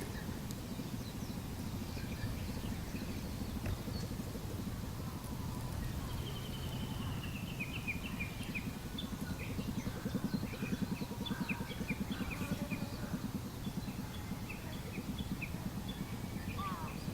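Small birds chirping repeatedly in short, quick calls over a steady low outdoor rumble, with a vehicle-like drone swelling in the middle.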